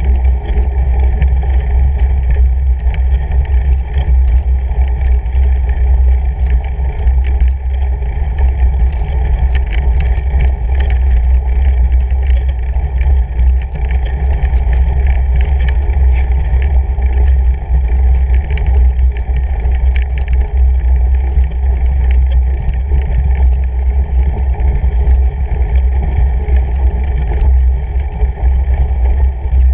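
A fatbike rolling uphill over packed snow, heard through a camera mounted on the bike: a steady low rumble of tyre and frame vibration with many small clicks and crunches.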